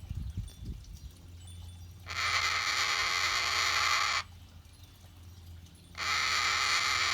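Cockatoo making a long, steady, raspy hissing sound, twice in a row, each lasting about two seconds with a pause between.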